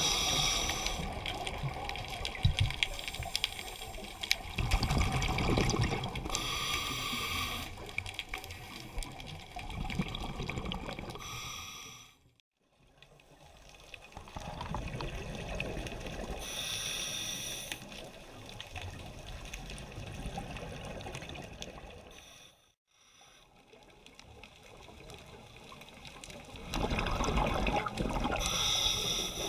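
Muffled underwater sound through a camera housing: scuba regulator exhalation bubbles rush out in short bursts every few seconds over a steady low water rumble. The sound drops out briefly twice.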